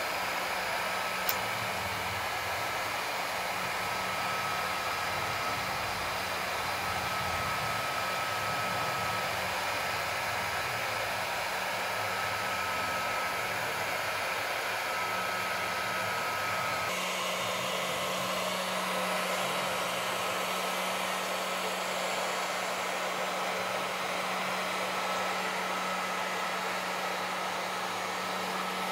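Bosch heat gun running steadily, its fan blowing with a constant hum and a thin steady whine, as it shrinks heat-shrink tubing over a cable splice. One light click about a second in.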